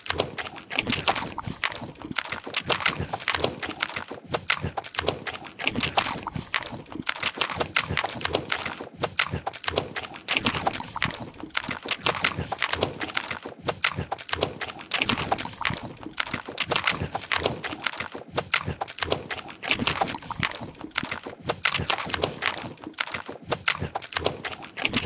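Rapid, continuous clacking of keyboard keys being pressed, several keystrokes a second in an uneven rhythm.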